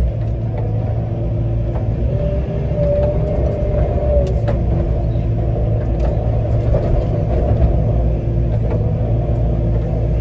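Hitachi 14-tonne excavator running steadily under its operator, with a low engine rumble and a higher whine that comes and goes, and a few faint clicks.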